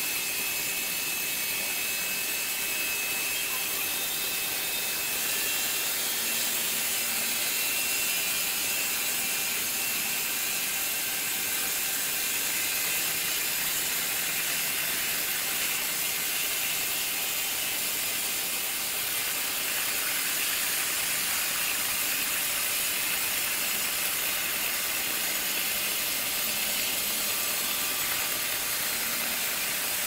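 Large horizontal band sawmill running, its blade cutting through a big log with a steady high-pitched hiss.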